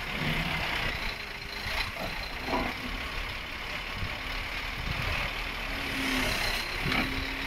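Heavy recovery truck's engine running steadily, with a few faint knocks.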